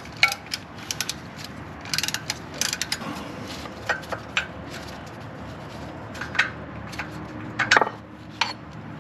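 12 mm wrench ratcheting in quick runs of clicks while loosening the nut that holds the front shifter bushings. After that come a few separate metallic clicks and clinks, the loudest about three quarters of the way through with a brief ring.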